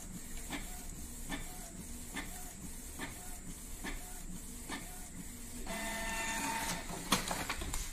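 Canon PIXMA G2000 inkjet printer printing a nozzle check test page: the print-head carriage sweeps back and forth with a short click and brief whine about every 0.8 s. Near the end the paper-feed motor whirs louder as the sheet is fed out.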